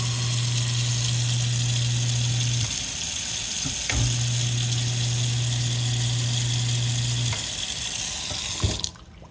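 Garbage disposal running with tap water flowing into the sink: a steady low motor hum, very quiet, that stops a little under three seconds in, starts again about a second later and stops again near seven seconds. The running water is shut off just before the end.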